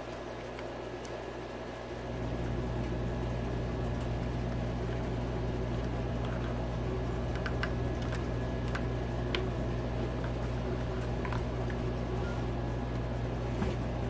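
Steady low mechanical hum that steps up in level about two seconds in, with scattered faint clicks and taps of small fuel-pump parts being handled.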